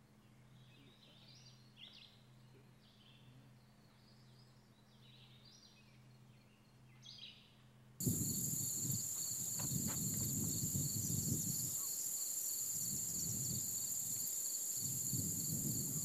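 Faint, scattered short bird calls over a low hum, then a sudden jump about halfway in to a much louder outdoor soundscape: a steady high-pitched insect chorus with wind rumbling on the microphone.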